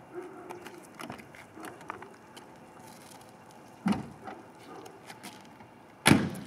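Driver's door of a 1991 Chevrolet Corvette ZR1 being worked: a clunk about four seconds in, then the door shut with a loud thump a little after six seconds, with small clicks between.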